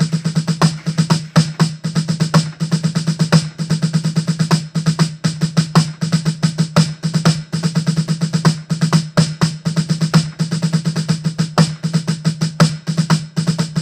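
Fast rudimental snare drum solo played on an electronic drum kit's mesh snare pad: a dense, unbroken stream of stick strokes with louder accents standing out, played loud at fortissimo.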